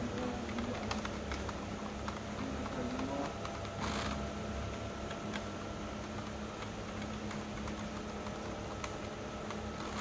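Keys on an MSI Vigor GK30 keyboard being pressed one by one, giving scattered clicks a few times a second over a steady low hum. A short rustle comes about four seconds in.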